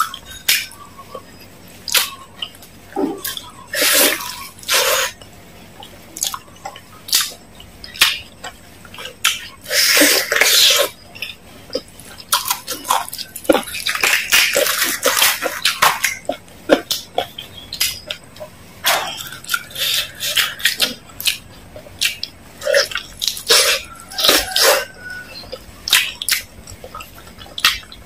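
Close-miked eating sounds of a crispy fried chicken leg being torn apart by hand and chewed: many sharp, wet, sticky clicks, with a few longer crackly stretches as the coated skin and meat pull apart.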